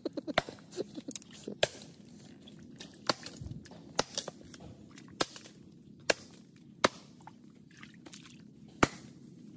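Sharp single knocks into dead mangrove wood, about one a second at irregular spacing, as the wood is broken open to get at the shipworms (tamilok) inside.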